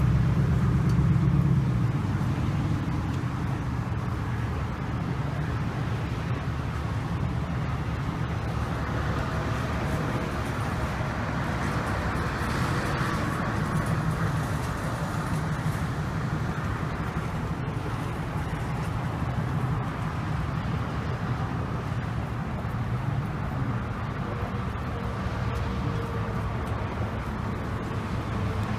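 Steady low rumble of a running vehicle engine, a little louder in the first couple of seconds.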